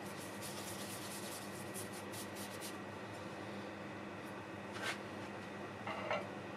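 Bristle brush stroking a liquid finish onto the inside of a turned wooden bowl: a quick run of short scratchy strokes, about four or five a second, for the first two and a half seconds. Two brief knocks follow near the end, the second the louder.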